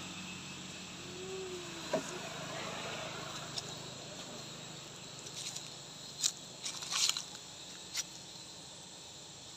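Dry leaf litter crackling in scattered sharp snaps, as of steps on dead leaves, starting about five seconds in. Under it, a distant engine hum fades away.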